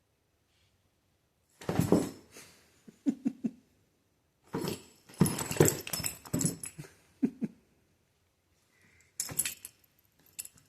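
Cats scrambling and pouncing at play: four bursts of scuffling with sharp knocks, the longest in the middle, and quiet gaps between them.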